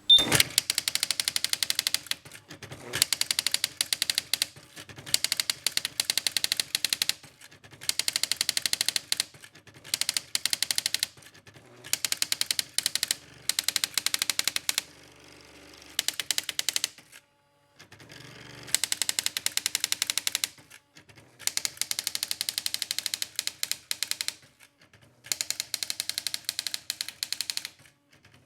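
Brother CE50 electronic typewriter's daisy wheel printing in fast bursts of rapid strikes, each run of a second or two broken by short pauses, as it types out lines sent to it as a printer.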